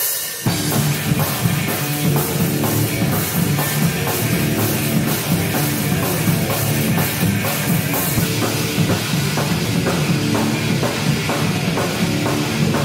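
Rock music with a drum kit; the full band comes in about half a second in and keeps a steady, driving beat.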